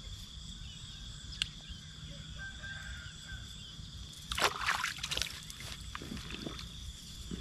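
Insects calling steadily in a flooded rice field. About four seconds in, a hand sloshes and splashes in the shallow paddy water several times, the loudest sound here, with a single sharp click earlier on.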